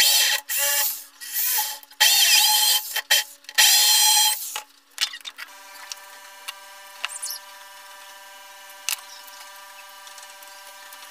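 Corded electric drill running in about six short, loud bursts over the first four and a half seconds as it bores into the wall, a noisy whine that stops and restarts. After that there is only a fainter steady hum with a few clicks.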